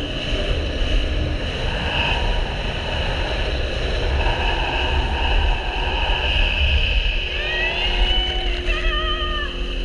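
Sea-Doo GTI jet ski running at speed: a steady engine drone with rushing water and wind buffeting the microphone. Near the end a rider's voice calls out over it.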